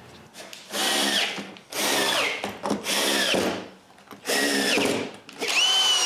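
Cordless drill-driver driving screws into wooden corner blocks: four short whining runs of about a second each, then a longer steady run starting near the end.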